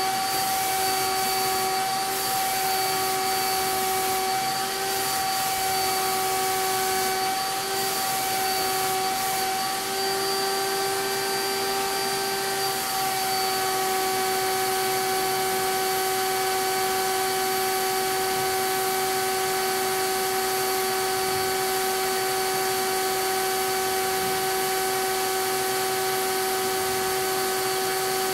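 Capspray HVLP turbine sprayer running with a steady whine over a rush of air hiss. The whine wavers and breaks during the first half, then holds steady.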